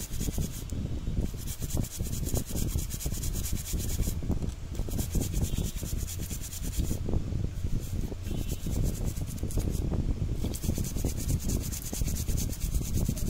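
Bristle brush scrubbing a corroded IC on a motherboard in many quick short strokes without pause. It is cleaning rust off the RAM controller IC, which the technician believes is shorting the board.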